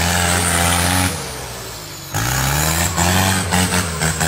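Diesel SUV engine revving hard under heavy load while climbing through mud. The revs ease off about a second in, then rise again about two seconds in and surge in pulses near the end.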